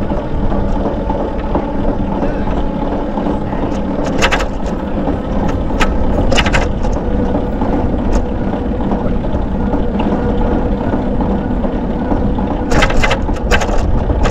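Bicycle riding ambience: a steady rumble of tyres on pavement with wind on the microphone. Short clicks come about four seconds in, again around six and a half seconds, and in a quick cluster near the end.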